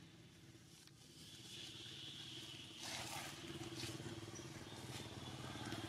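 A motor running steadily with a low, even hum, and a couple of brief rustling noises about three seconds in.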